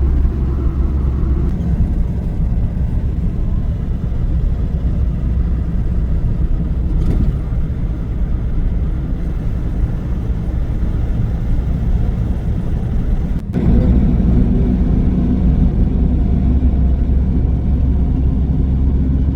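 Car engine and road noise while driving, a steady low rumble. Its tone and level shift slightly about thirteen and a half seconds in.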